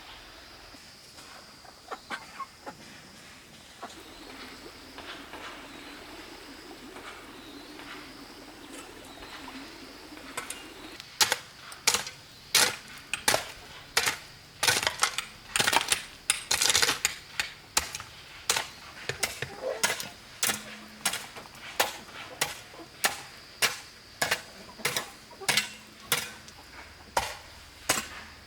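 A tool striking bamboo in a steady chopping or hammering rhythm, about one and a half sharp strikes a second, starting about eleven seconds in. Before the strikes there is only a faint steady high-pitched tone.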